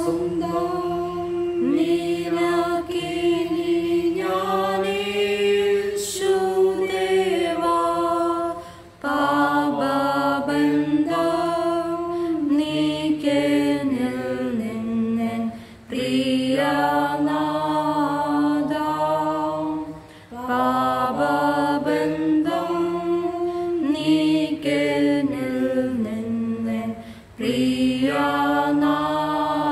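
A Christian hymn being sung in five long phrases, with brief pauses for breath between them.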